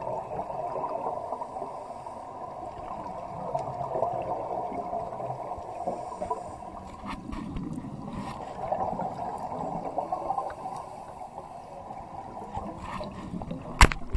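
Underwater sound on a scuba dive: divers' regulators venting exhaled air, bubbling in irregular swells over a steady hiss. A single sharp knock sounds just before the end and is the loudest thing.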